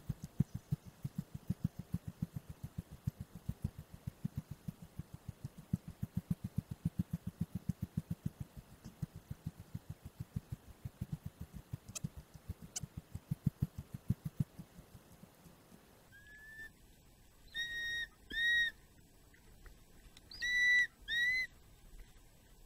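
Quick, regular thuds of someone running on a grassy embankment, about four to five a second, fading out about 15 seconds in. Then two pairs of short, shrill whistled calls, each note rising slightly at its end, from a changeable hawk-eagle.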